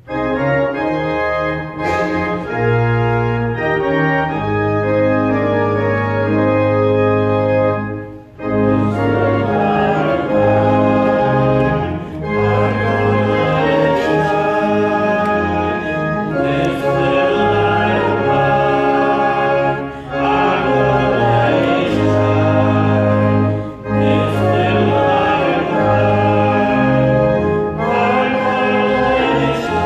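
Church organ playing a slow hymn-like piece in held chords over sustained bass notes, with short breaks between phrases.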